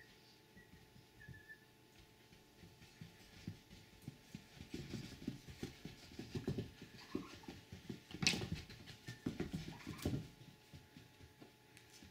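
Ostrich chicks' feet thudding and scuffing irregularly on a carpeted floor as they run and spin, busiest in the second half. A sharp knock comes a little after eight seconds, and there are a few faint short peeps.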